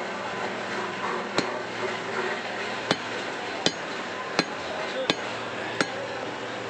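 Heavy cleaver chopping beef fat on a round wooden chopping block: six sharp knocks, the last five about one every three-quarters of a second, over steady background noise.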